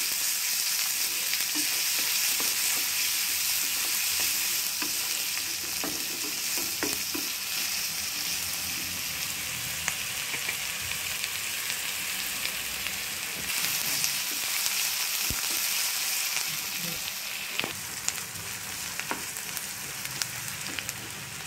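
Chopped onions sizzling steadily as they fry in oil in a nonstick kadai, with a slotted wooden spatula scraping and tapping against the pan as they are stirred now and then.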